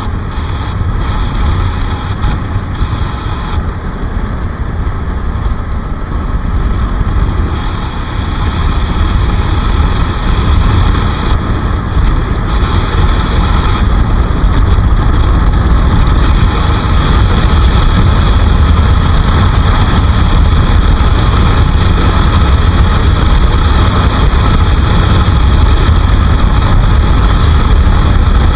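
Bajaj Pulsar RS 200's single-cylinder engine running on the move, with a heavy low rumble underneath. It gets louder about eight seconds in and then holds steady.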